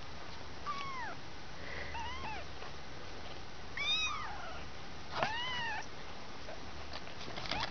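Two-week-old kittens mewing: about five short, high, rising-then-falling mews, the loudest about four seconds in.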